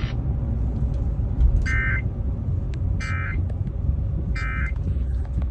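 Emergency Alert System end-of-message data bursts: three short buzzing two-tone digital bursts, about a second and a half apart, marking the close of the alert, over a steady low rumble.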